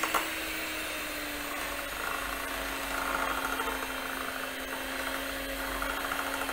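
Electric hand mixer running steadily, its twin beaters whirring through thick cake batter, with a steady motor hum that sags slightly in pitch in the first couple of seconds.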